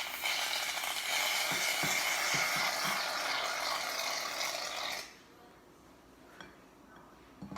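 Aerosol can of shaving foam dispensing with a steady hiss, which stops abruptly about five seconds in.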